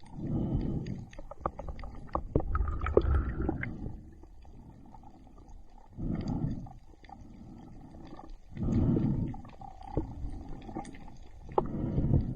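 Heavy breaths through a snorkel, a loud rushing breath every two to three seconds, with water gurgling and small clicks in between.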